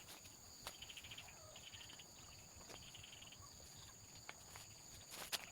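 Faint insects trilling: a steady high-pitched whine, with three short rapid pulsed trills in the middle. A few soft clicks come near the end.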